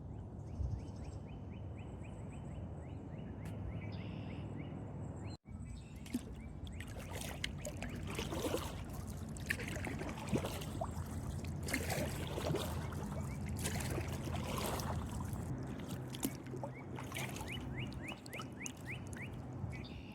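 Kayak paddle strokes splashing and dripping in the water over a steady low rumble. After a brief dropout about five seconds in, the splashes come louder and more often.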